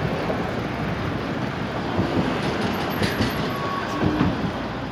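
Steady city traffic noise along a busy road, with a few faint pitched sounds near the middle.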